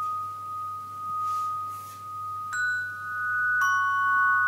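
Rock crystal rods of a small crystal Himmelsleiter struck with a thin mallet. One clear high note rings on long and steady, swelling and fading slowly. A little past halfway two more rods are struck about a second apart, one higher and one lower, and each adds its own ringing note.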